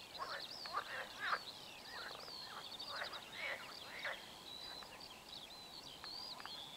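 Small birds calling and singing: a continuous chatter of short, high chirps and twittering whistles, with a flurry of sharper down-slurred calls in the first few seconds.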